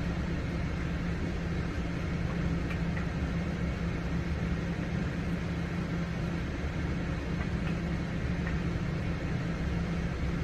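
Steady low machine hum with a constant low tone, unchanging throughout.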